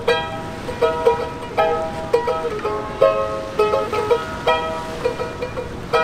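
Small ukulele-style string instrument with a wooden body, strummed in a steady rhythm: bright chords ringing out with a fresh strum every half second or so and the chord shape changing from bar to bar.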